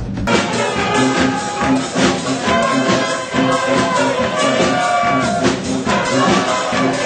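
Brass band with sousaphone and saxophones playing, a low bass line repeating underneath. It cuts in abruptly just after the start, replacing a different, bass-heavy sound.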